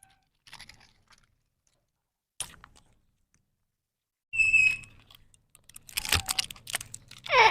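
Parrot making scattered clicks and crunching sounds, with one short high-pitched call about four and a half seconds in.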